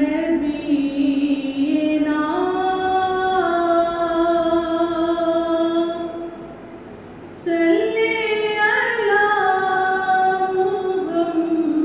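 A woman singing a naat unaccompanied, holding long, slowly stepping notes. She breaks off for about a second and a half a little after halfway, then goes on.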